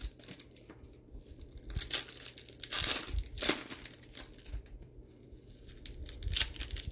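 Plastic trading-card pack wrappers crinkling as they are handled and torn open, in several short bursts.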